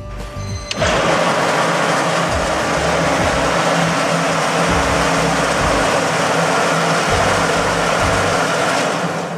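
Steady loud rushing noise from a stainless-steel tomato peel-removal machine running. It starts about a second in and cuts off near the end, with soft background music underneath.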